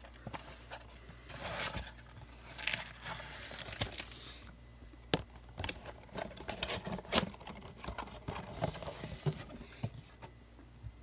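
Crinkling of foil trading-card pack wrappers and rustling of a cardboard box as the packs are pulled out and set down, with a few light taps on a wooden tabletop.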